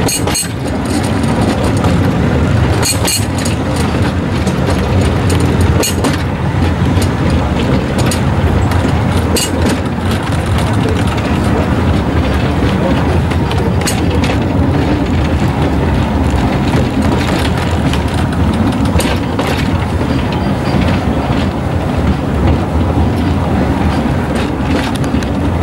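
Narrow-gauge train running along the track, a steady low rumble from the wheels with occasional sharp clicks and knocks from the rails.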